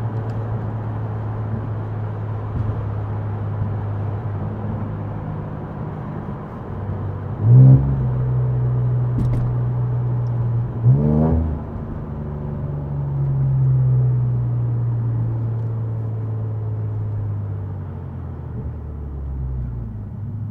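Infiniti Q60's twin-turbo V6 running steadily with a low drone. It gives two short, sharp revs, about seven and eleven seconds in, then rises in a slower swell a few seconds later.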